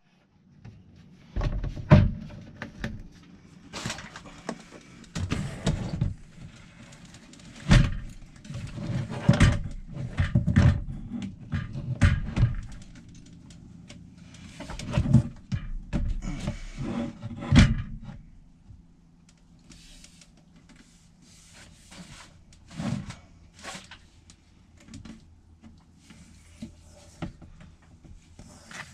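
Irregular knocks, clunks and clattering, as of things being handled and set down in a small enclosed space, over a faint steady low hum. The knocks come thick for most of the first two-thirds and then thin out to scattered lighter ones.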